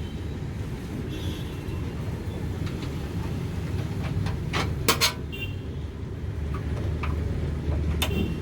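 Steady low rumble of road traffic, with a few sharp clicks of small metal parts as the graphics card's bracket and screw are fitted: a pair about five seconds in and one near the end.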